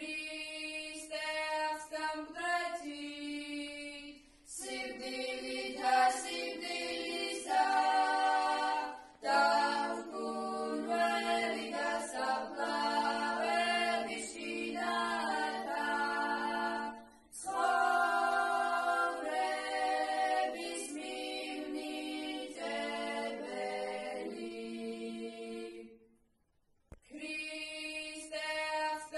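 Georgian Easter hymn sung a cappella by a small group of girls, several voices singing together. The singing breaks off for about a second near the end and then starts again.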